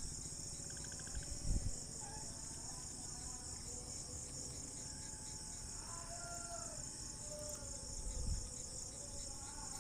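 Steady high-pitched pulsing chorus of insects such as crickets. Two soft low knocks from the steering-box parts being handled come about one and a half seconds in and again near the end.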